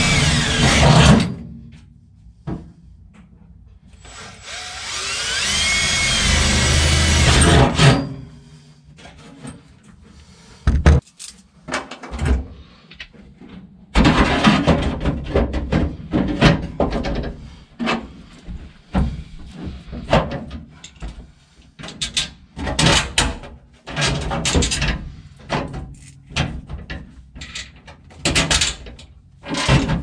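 Cordless drill boring into the truck's floor for the B&M floor shifter, its motor whining and changing pitch as the bit bites, in a short run and then a longer one of about four seconds. After it comes a run of knocks and clatter as the shifter parts are handled and set in place.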